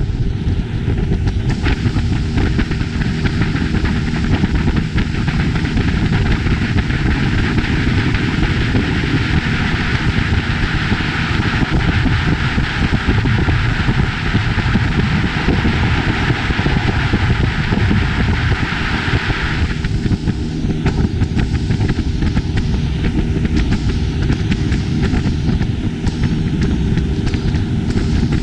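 Motorboat running at speed: a loud, steady low rumble with a rushing hiss over it that cuts out about two-thirds of the way through.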